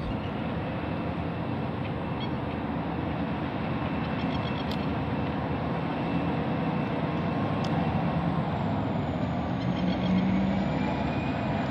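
Diesel locomotive 8106 of the NSW 81 class approaching at the head of a freight train, its engine running with a steady drone that grows a little louder towards the end. A thin high whine wavers in pitch over the second half.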